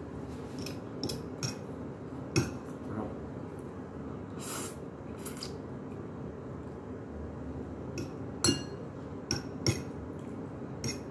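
A metal fork clinking and scraping against a ceramic plate while noodles are eaten: about a dozen light clinks at uneven intervals, two of them louder, about two and a half seconds in and again about eight and a half seconds in.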